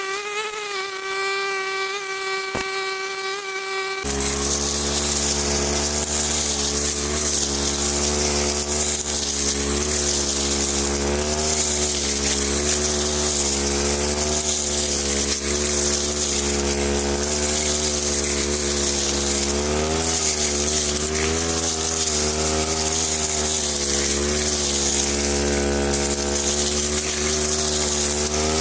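Brush cutter (grass trimmer) motor running with a steady high tone, then about four seconds in it suddenly turns louder and lower in pitch, wavering a little, with a hiss over it.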